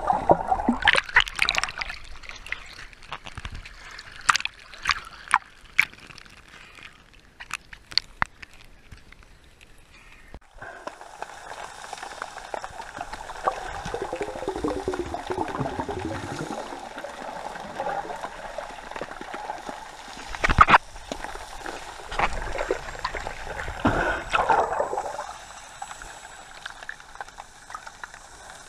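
Sea water sloshing and gurgling close to the microphone, with sharp splashes and clicks through the first ten seconds. About ten seconds in the sound changes abruptly to a steadier gurgling hiss, broken by a few more splashes.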